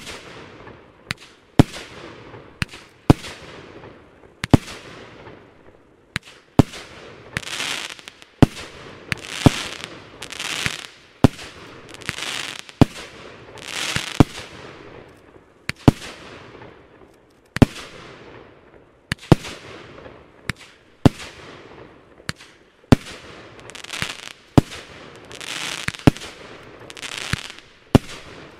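A steady series of fireworks shots, about one every second and a half to two seconds, around seventeen in all. Each is a sharp bang followed by a crackle that fades away.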